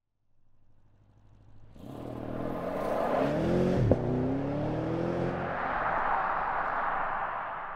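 Bentley Flying Spur's twin-turbo V8 accelerating, its engine note rising in pitch, dropping briefly with a sharp click about four seconds in and then rising again. Tyre and road noise swells as the car draws level and then fades near the end.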